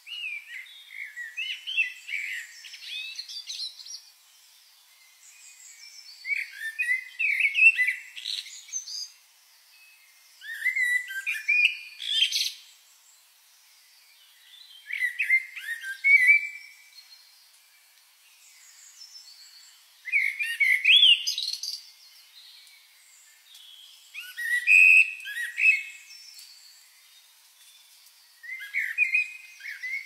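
A songbird singing: a quick, jumbled warbling phrase of a couple of seconds, repeated about seven times with short pauses between.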